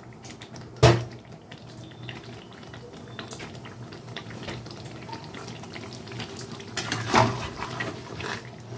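A utensil knocks sharply against a cooking pan about a second in, over a faint steady hum, and near the end a spatula scrapes and clatters in the pan of chicken gravy.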